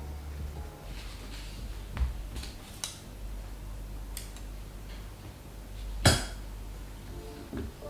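Scissors snipping a thin plastic screen-protector sheet, with short sharp clicks and the sheet rustling as it is handled, then laid onto a pen tablet; the loudest is one sharp sound of the sheet about six seconds in.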